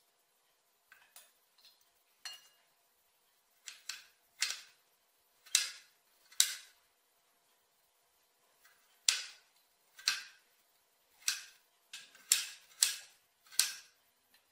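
Kitchen utensils knocking during food preparation: about a dozen sharp, irregular clacks, some in quick pairs, with short gaps between groups.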